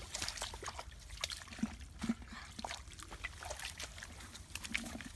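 Shallow muddy stream water sloshing and trickling, with many small irregular splashes and clicks as feet wade through it, over a steady low rumble.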